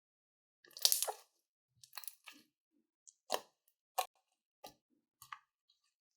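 Slime being squished and pulled by hand, giving a series of short sticky crackles and pops, the loudest about a second in.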